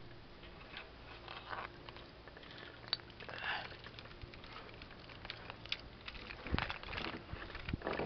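Faint rustling with scattered clicks and knocks from handling of the hand-held camera and gear, with a sharper click about three seconds in and a heavier knock about six and a half seconds in.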